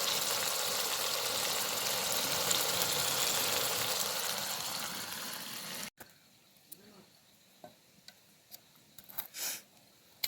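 A steady, dense hiss that cuts off abruptly about six seconds in, followed by faint scattered small sounds.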